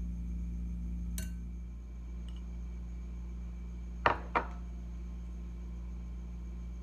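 Metal kitchen utensils clinking against a glass mixing bowl: one light click about a second in, then two sharp clinks about a third of a second apart some four seconds in, over a steady low hum.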